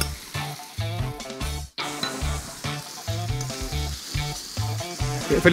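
Beef fillet, onions, pepper and apple sizzling in a hot frying pan as a splash of pineapple juice hits it, under background music with a steady bass beat. The sound cuts out for an instant just under two seconds in.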